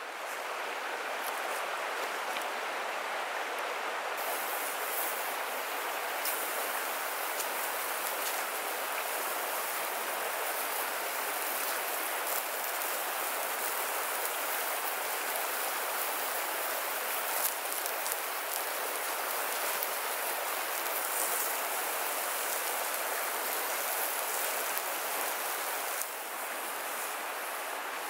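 Meat sizzling on a grill over a campfire: a steady hiss with a few faint pops and crackles.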